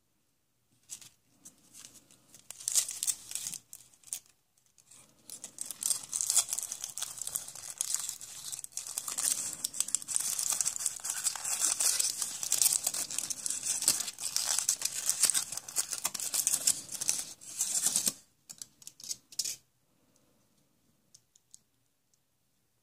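Wrapper of a surprise egg being torn open and crinkled, a continuous crackling rustle that starts in short bursts, runs on for over ten seconds and stops abruptly a few seconds before the end.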